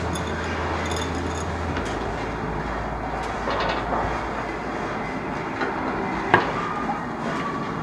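Steady rushing background noise with a low hum that drops away about two seconds in, and one sharp click about six seconds in.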